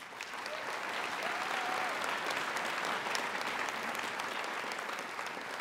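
Large seated audience applauding, the clapping building up over the first second and then holding steady before easing slightly.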